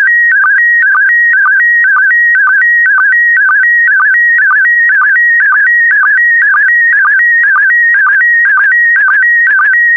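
Slow-scan TV (SSTV) image signal in PD120 mode: a loud, warbling electronic tone around 1.5 to 2 kHz, broken about twice a second by a short lower sync pulse, repeating evenly as the picture is sent line by line.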